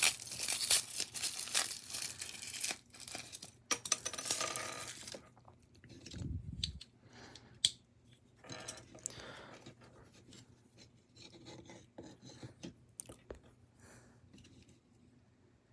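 Plastic packaging crinkling and tearing as a toy figure's accessories are unwrapped, dense for about the first five seconds, then quieter scattered clicks and rustles of handling.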